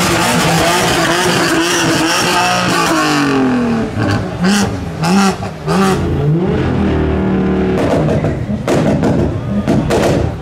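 A tuned car's engine revving hard in repeated short rising bursts, with sharp exhaust pops and bangs, typical of antilag or launch control. A spell of tyre squeal and dense engine noise comes first.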